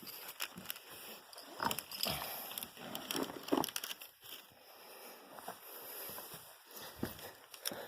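Footsteps on loose rock and gravel, with irregular crunches, scuffs and scrapes, as someone picks their way down a steep, rocky path.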